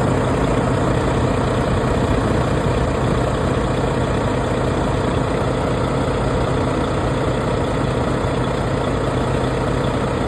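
Heavy truck engine idling steadily, with a constant low hum and no change in speed.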